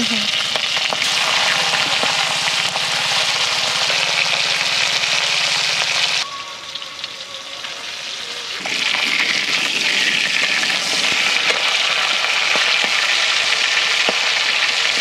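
Catla fish heads frying in hot oil in a wok, with a loud, steady sizzle. The sizzle drops quieter for about two seconds a little after the middle, then comes back at full strength.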